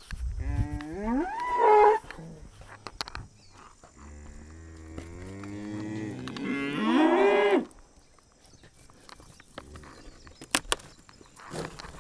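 A cow mooing twice. The first is a short call that rises in pitch, about half a second in. The second is a longer call starting about four seconds in, which swells and rises at its end. A few faint knocks follow.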